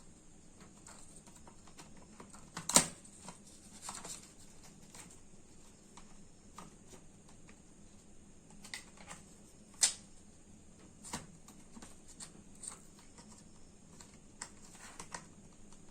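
Scattered small clicks and taps of hard plastic and metal as a 2.5-inch SSD in its drive caddy is handled and pushed into a laptop's hard-drive bay. Two sharper clicks stand out, about three seconds in and again near ten seconds.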